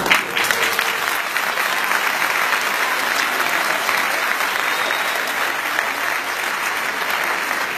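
Audience applauding: a dense, steady round of clapping that breaks out suddenly at the start.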